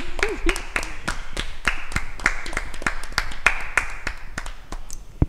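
A small group of people clapping their hands, a few sharp claps a second, tapering off and stopping near the end.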